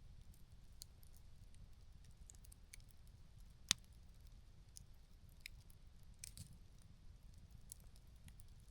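Faint campfire crackling: scattered small pops and snaps over a low steady rumble, with one sharper, louder pop a little before halfway.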